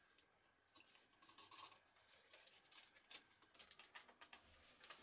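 Near silence with faint, scattered clicks and light scrapes: gloved hands handling a jigsaw and its plywood circle-cutting jig on the wooden workpiece.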